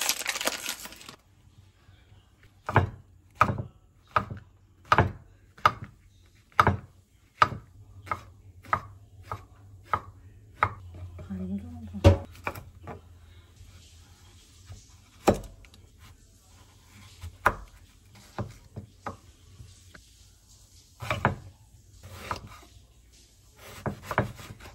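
A chef's knife slicing Korean zucchini and eggplant and knocking on a wooden cutting board, in a slow, uneven series of sharp knocks. It opens with a brief crinkle of plastic wrap being pulled off the zucchini.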